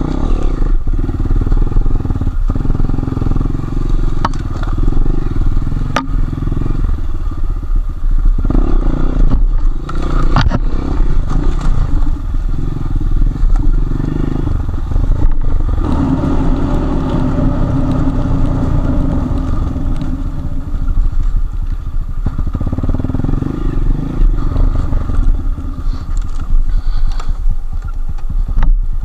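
Enduro motorcycle engine running under load, its pitch rising and falling with the throttle as it rides a rough forest trail, with a few sharp knocks and rattles over the ground.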